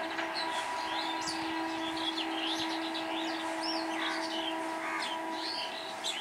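Many small birds chirping and trilling, with a steady low tone underneath that breaks off briefly early and stops near the end.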